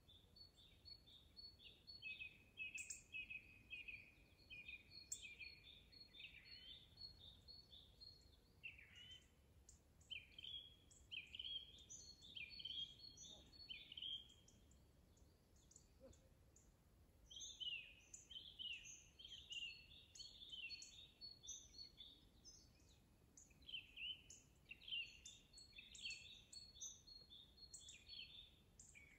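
Small songbirds singing in four bouts of quick, high chirping phrases, each several seconds long with short pauses between, over a faint steady hiss.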